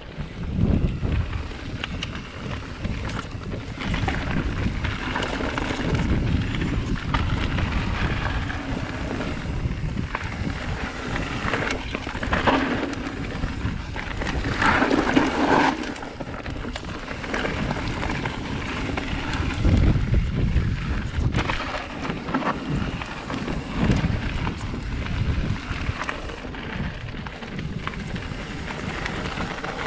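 Wind noise on a mountain bike's handlebar camera microphone, mixed with the bike's tyres rolling over dirt and loose gravel, its loudness swelling and dipping unevenly over the rough trail.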